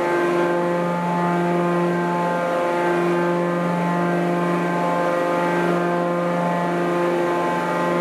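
Walking-type static hydraulic pile pressing machine running, a steady even-pitched hydraulic drive hum while it presses a square pile into the ground, with no hammer blows.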